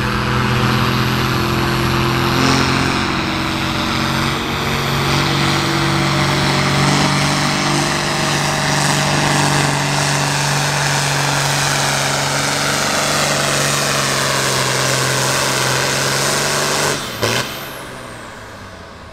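Farm stock diesel pulling tractor under full throttle dragging the sled, its engine running loud and steady at a nearly constant pitch. About two seconds before the end the engine note cuts off sharply as the pull ends.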